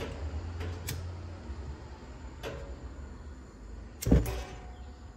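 Lighter clicking at the first burner of a two-burner propane camp stove: sharp clicks about a second and a half apart, then a louder click with a low thump about four seconds in as the propane burner catches. A low hum runs underneath.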